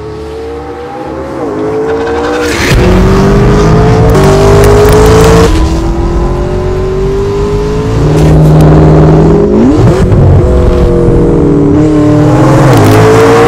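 McLaren MP4-12C's twin-turbo V8 through a Fi Exhaust valved catback and catless downpipes, accelerating hard. The engine note builds over the first couple of seconds, then climbs in pitch and drops back at each upshift, several times over, with sharp cracks at some of the shifts.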